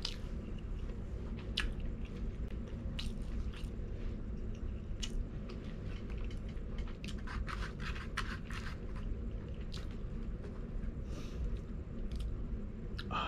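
A person chewing food close to the microphone: irregular soft crunches and wet mouth clicks.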